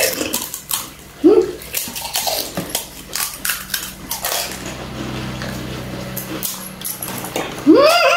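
Crisp pani puri shells being cracked open and crunched in the mouth: many short sharp crackles, with splashing as they are dipped into a bowl of spiced water. Two short vocal sounds break in, a brief one early and a stronger one near the end.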